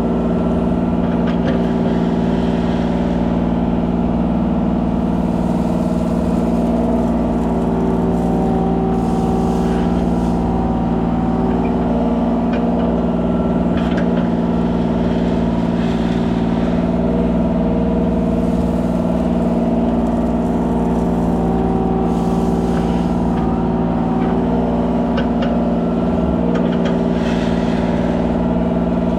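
Kubota 33 mini excavator's diesel engine running at a steady, unchanging pitch, with a few light knocks from the working machine scattered through it.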